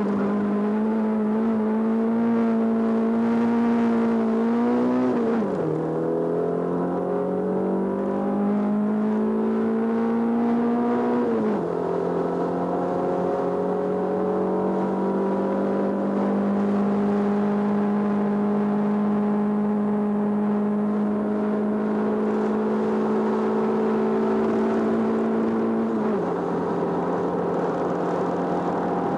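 Small race car's engine heard from inside the cabin, pulling hard uphill. The pitch climbs slowly, then drops sharply at gear changes about five seconds in, about eleven seconds in and near the end. Between the second and third changes the revs hold nearly steady.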